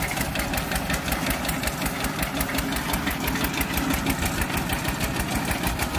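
The 7-horsepower engine of a walk-behind tractor runs steadily with an even, rapid beat, working under load as it drives a grass-cutting mower through tall grass.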